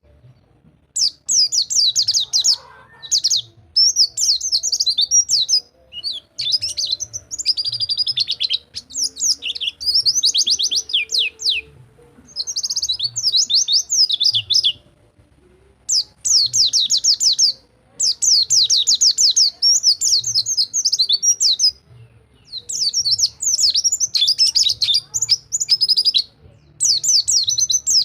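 Pleci (white-eye) singing in the 'rol tembak' style: bursts of fast, high rolling trills a second or two long, broken by short pauses.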